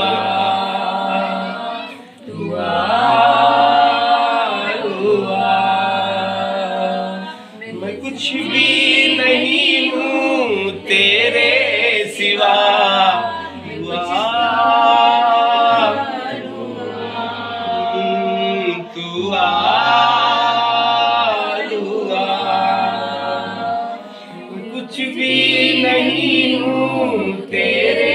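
Voices singing together a Christian praise song (stuti) to Jesus, in long sung phrases of a few seconds each with short breaks between.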